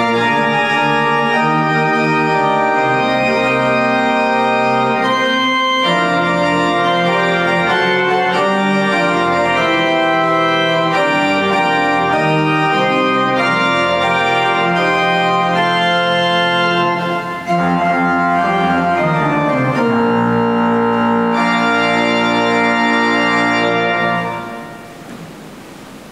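Church organ playing a series of sustained, changing chords. The last chord is held and stops about 24 seconds in, leaving only a faint hiss.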